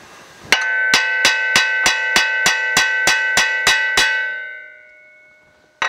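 Hammer blows on a newly fitted wheel stud in the steel wheel hub, about three a second for a dozen strikes, each ringing like a bell, driving the stud in so its head seats flat against the hub flange. The ringing fades out over about a second after the last blow, and a single blow lands near the end.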